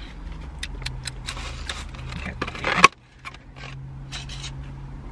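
Paper and takeout food packaging being handled: a run of short crinkles and rustles, building to a louder crackle nearly three seconds in that cuts off suddenly.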